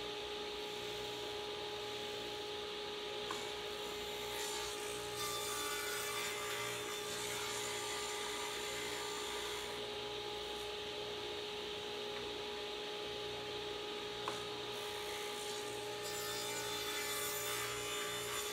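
Table saw running steadily while pine 1x4 boards are pushed through on a crosscut sled for 30-degree bevel cuts; the cutting noise swells with each pass, loudest about five seconds in and near the end.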